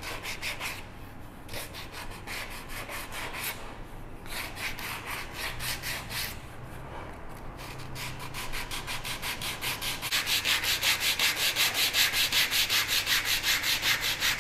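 Sandpaper on a hand sanding pad rubbed back and forth over a wooden stool seat, softly rounding over its edge, in quick strokes with a few short pauses. From about ten seconds in the strokes become louder and steady, about three to four a second.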